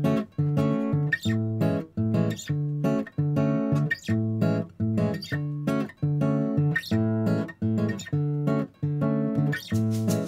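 Background music: acoustic guitar strumming chords in a steady, upbeat rhythm.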